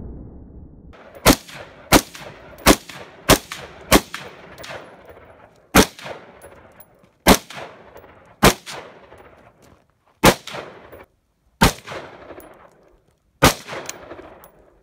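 AR-15 semi-automatic rifle firing eleven single shots, each a sharp crack with a short echo: the first five about two-thirds of a second apart, then six more spaced slower, a second or two apart.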